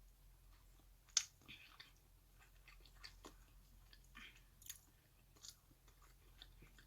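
Faint chewing of food close to the microphone, with scattered soft crunches and mouth clicks and one sharper click about a second in.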